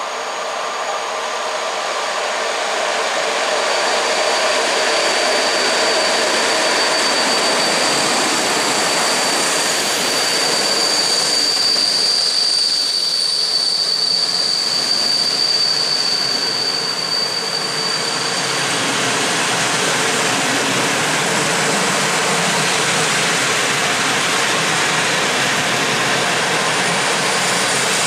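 Class EP08 electric locomotive and its long train of passenger coaches rolling past at close range, a steady rumbling rush that swells over the first few seconds. A thin, high wheel squeal sets in a few seconds in and holds until about two-thirds of the way through.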